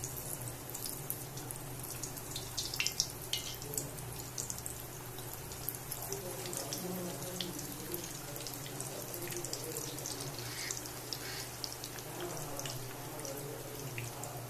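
Bread gulab jamun balls deep-frying in hot oil in a steel pot: a steady sizzle and bubbling with scattered pops and crackles, over a low steady hum.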